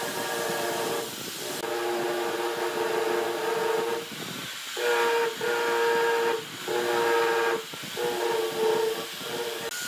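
Angle grinder with a sanding disc sanding a wooden cylinder that spins in a corded drill: a steady high whine with sanding hiss, dropping off briefly several times as the disc eases off the wood and comes back.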